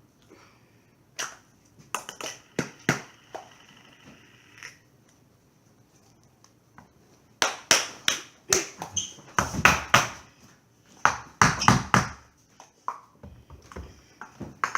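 Handling noise: a few scattered clicks and knocks of small objects, then a busier, louder run of knocks and rustling in the second half.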